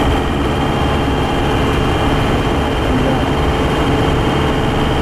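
Motorhome driving on the open road, heard from inside the cab: a steady mix of engine and road noise.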